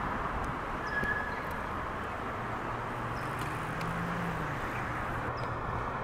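Steady outdoor traffic noise, with a low hum swelling in the middle and a few faint, short, high chirps from a small bird.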